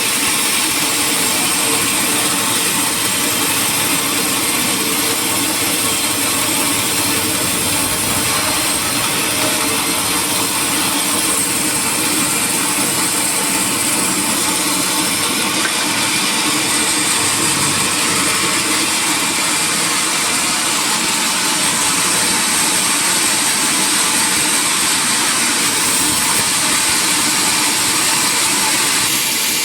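Sawmill machinery running: a loud, steady mechanical noise with a high whine, unchanging throughout.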